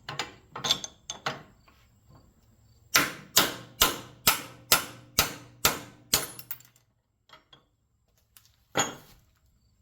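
Hammer striking a punch to drive a knurled steel insert out of a copper piece from a motor starter: a few light taps, then eight sharp metallic blows about two a second, and one more blow near the end.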